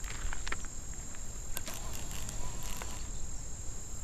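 Crickets trilling steadily in the grass: one unbroken high-pitched note, over a low rumble and a few faint clicks.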